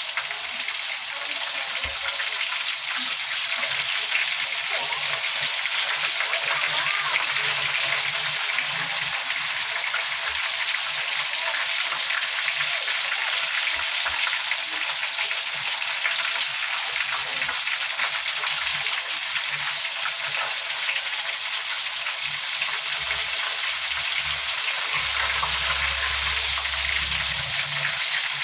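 Egg-battered chicken pieces deep-frying in canola oil, a steady dense sizzle and crackle of hot oil.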